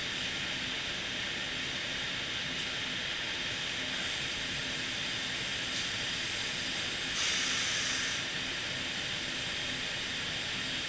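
Steady hiss of running machinery, with a louder surge of hiss about seven seconds in that lasts about a second.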